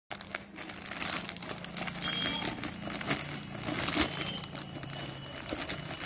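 Plastic courier mailer bag crinkling and rustling as it is handled, in an irregular run of crackles, the sharpest about four seconds in.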